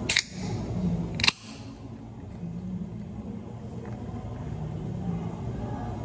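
Aluminium can of sparkling water being opened: two sharp cracks of the pull tab about a second apart, each followed by a short hiss of escaping gas. Near the end the sparkling water is poured over ice in a plastic cup.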